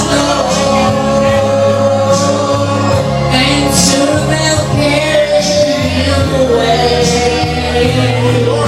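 Country ballad sung live to a karaoke backing track, the voice holding long notes over a steady bass line.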